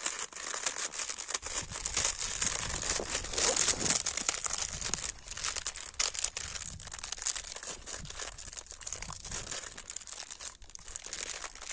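Plastic food packet crinkling and being torn open by hand, a dense run of small crackles and rustles.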